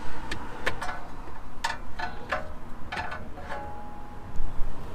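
Small metal parts clicking and clinking, about eight light knocks over a few seconds, some with a short metallic ring: a castle nut and cotter pin being handled for fitting to the tie rod end.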